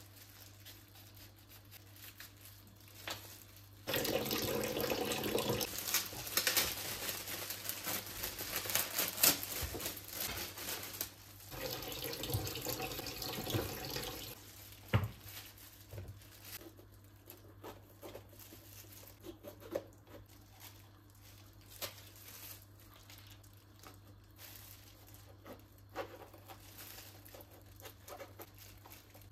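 Kitchen tap running into a sink in two spells, about four seconds in and again around twelve seconds, followed by scattered small clicks and knocks of kitchen work.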